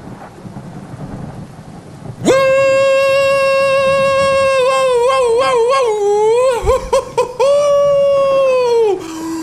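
Steady rain, then about two seconds in a man's high voice breaks in with a long, loud sung cry: held on one note, wavering up and down in the middle, held again and gliding down near the end.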